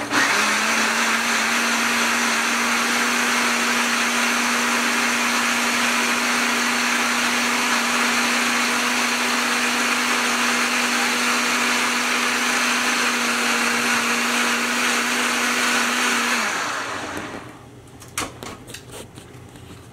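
Ninja personal blender running at a steady speed, puréeing green hot peppers, garlic and onion into a hot sauce: an even whir over a steady hum. It winds down about three quarters of the way through, followed by a few clicks as the cup is taken off the base.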